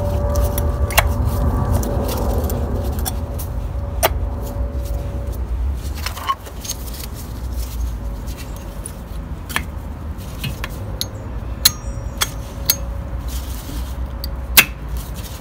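Brake pads and their metal clips being fitted into a VW Polo's front brake caliper carrier: scattered sharp metallic clicks and light rattles a second or more apart, the sharpest near the end, as the pads are pushed and clicked into place. Under them runs a steady low rumble.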